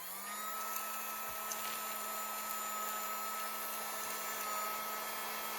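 USB-powered miniature handheld vacuum cleaner's small motor spinning up and then running with a steady whine.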